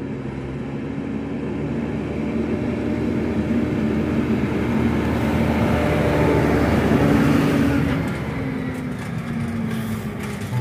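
Tractor engine running at road speed as it drives up and past, with tyre noise on tarmac; it grows louder as it approaches, peaks as it passes about seven seconds in, then fades as it pulls away.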